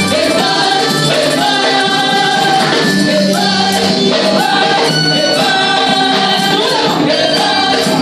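Loud gospel music: a group singing in chorus with a tambourine shaken along, over held, sustained notes.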